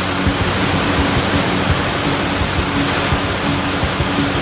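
Handheld fire hose nozzle spraying a strong jet of water: a loud, steady rushing hiss with no break.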